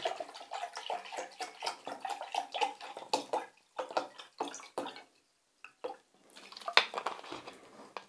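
Water poured from a plastic bottle into a measuring jug, splashing and gurgling steadily until the stream stops about three and a half seconds in. A few drips follow. In the last two seconds the plastic bottle is handled and set down, with sharp knocks and rustles.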